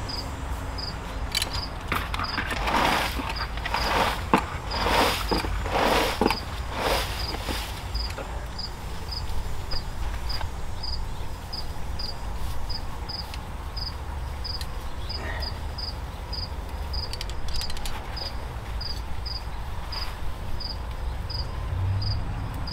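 Hemlock twigs and foliage rustling and snapping as broken branches are pulled off, for a few seconds shortly after the start. Under it an insect chirps steadily at a high pitch, about two chirps a second.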